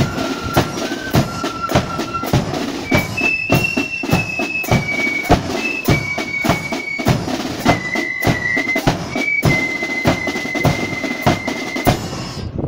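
Marching flute band playing a tune: a high, shrill melody on flutes over a steady beat of snare and bass drums. It ends together about a second before the end.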